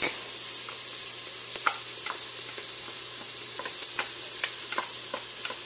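Chopped onions and minced garlic sizzling in hot olive oil in an Instant Pot's inner pot: a steady hiss with scattered small crackles and pops. A faint steady low hum runs underneath.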